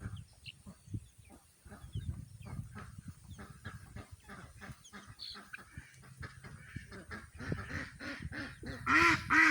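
Poultry flock feeding, with many soft short calls, then ducks breaking into loud repeated quacks near the end.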